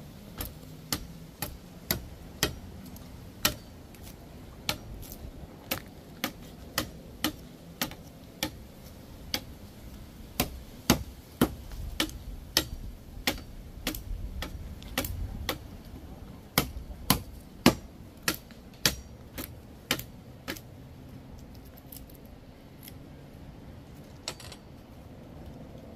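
Knife chopping on a cutting board: a long, irregular string of sharp knocks, often about two a second, stopping near the end.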